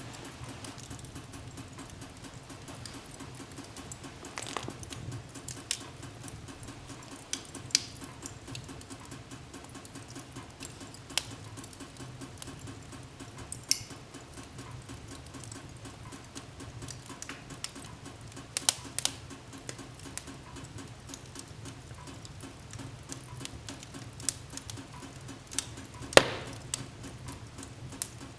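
Wood fire burning in a fireplace: a steady low rumble of the flames with irregular sharp crackles and pops, one louder pop near the end.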